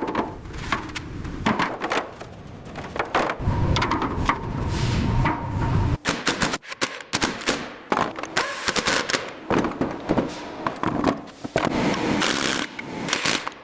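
Workshop sounds of tools and parts being handled: rapid clicks and knocks with stretches of scraping.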